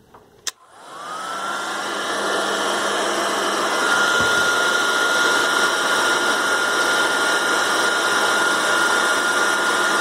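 Master EcoHeat electric heat gun switched on with a click, its fan spinning up to a steady whine over a loud rush of hot air as it shrinks heat-shrink tubing over spliced cord wires.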